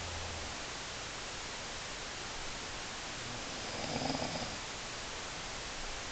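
A single snore about four seconds in, over a steady background hiss.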